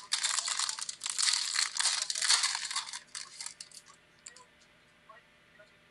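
Foil wrapper of a Select football card pack being torn open and crinkled for about three and a half seconds, dying down to a few faint clicks near the end.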